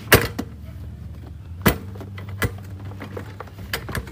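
A few sharp clicks and knocks from the plastic seat and body panels of a motor scooter being handled, the loudest near the start, over a steady low hum.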